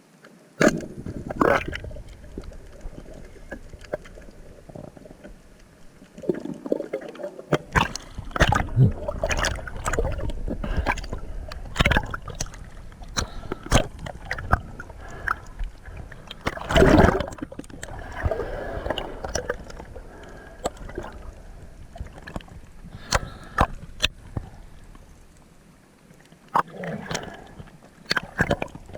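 Water gurgling and sloshing, with many sharp knocks and clicks scattered through it and a louder burst about two-thirds of the way in.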